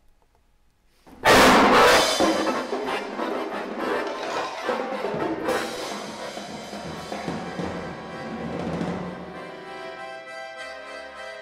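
Contemporary duet for accordion and percussion: a sudden loud crash of drums and cymbals with an accordion chord about a second in, ringing away over several seconds. Near the end the accordion settles on a held chord.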